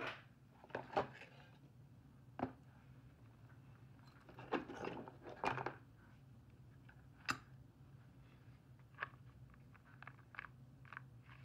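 Faint handling noises of a bison-leather roll kit being turned over and opened in the hands: scattered light clicks, taps and leather rustles over a low steady hum.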